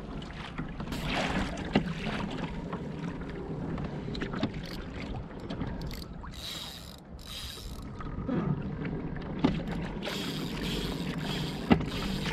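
Sea water lapping and splashing against a kayak's hull, with three sharp knocks of gear on the kayak, the loudest near the end.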